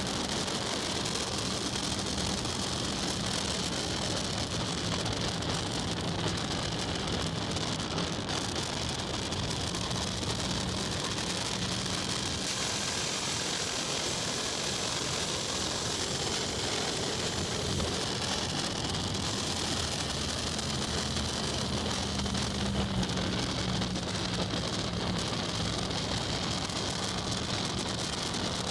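A car with a 4.6-litre V8 driving along: a steady low engine hum under a constant hiss of road and wind noise.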